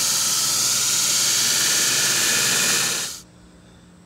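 Belt grinder running with a wrought iron and 1095 steel san mai billet being ground to profile against the belt: a loud, steady hiss that stops suddenly about three seconds in.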